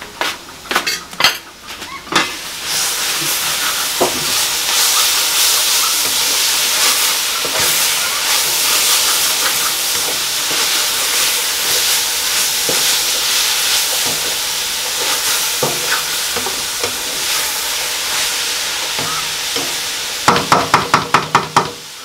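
Crawfish and fish sizzling in a large stainless steel pot: a steady hiss that sets in after a few sharp utensil clicks in the first couple of seconds. Near the end comes a quick, even run of knocks.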